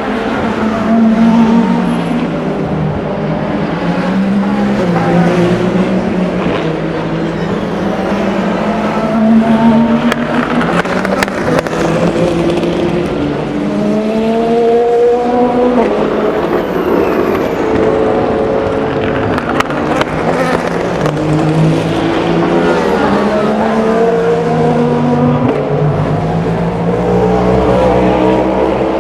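Several endurance racing cars (hypercars and GT cars) passing one after another through a corner. Their engine notes overlap, rising and stepping in pitch as they change gear.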